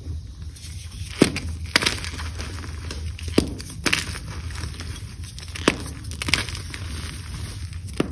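Hands crushing and snapping blocks of gym chalk in a bed of cornstarch: a soft crunching with about seven sharp snaps spread through, as the blocks break apart.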